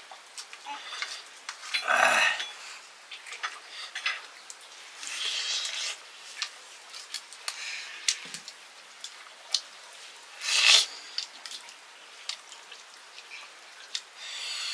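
A metal spoon clinking and scraping against a steel plate, with many small taps and clicks. There are two louder, short noises, about two seconds in and near eleven seconds.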